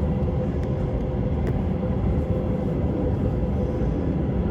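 Steady low rumble inside a moving vehicle, with a faint steady hum and a couple of light ticks.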